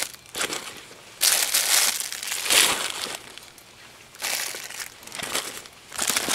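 Clear zip-lock plastic bags crinkling and rustling as a hand sorts through and gathers up a pile of packed gear, in several bursts, the longest lasting about two seconds starting about a second in.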